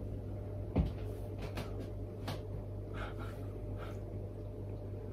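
Scattered small plastic clicks and knocks as the plastic opener cap of a Japanese marble soda bottle is handled and worked at, the bottle not yet open; the sharpest click comes under a second in.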